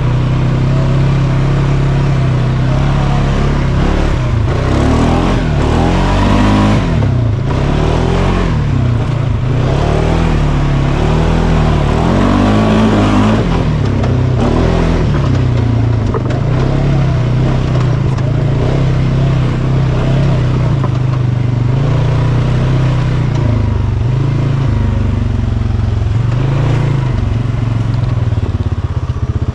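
A 2023 Polaris Sportsman 570's 567cc single-cylinder four-stroke engine driving the ATV over dirt trails. It revs up and eases off several times in the first half, then runs more evenly.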